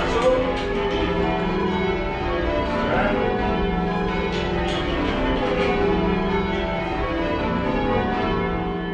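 A light ring of ten church bells ringing changes, heard from the ringing room below the bells: a continuous, even stream of overlapping strikes, slightly mushy.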